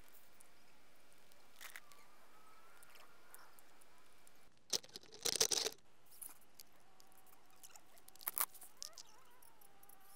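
Quiet outdoor background hiss broken by a few short knocks and rustles, the loudest a cluster about five seconds in and another about eight and a half seconds in, with faint wavering thin tones in between.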